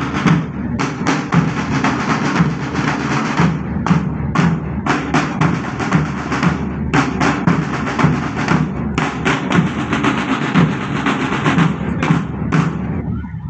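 Marching drum band of snare and bass drums playing a steady marching beat, then stopping abruptly near the end.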